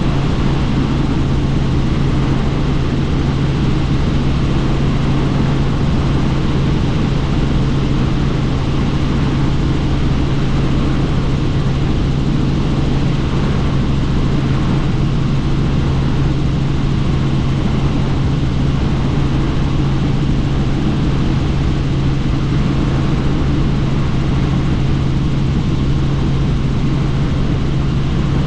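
Helicopter in flight, heard from inside the cabin with the doors off: a loud, steady rotor and engine noise with a strong low hum that does not change.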